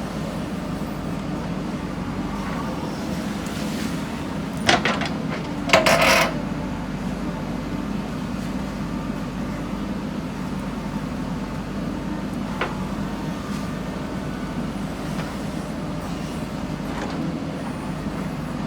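Diesel engine of a JCB backhoe loader running steadily at work, with two loud knocks about five and six seconds in (the second lasting about half a second) and a fainter click later on.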